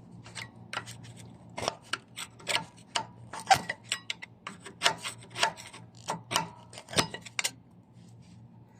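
Irregular sharp metal clicks and scrapes from a hand tool levering the pistons back into a rear brake caliper. They stop about three-quarters of the way through.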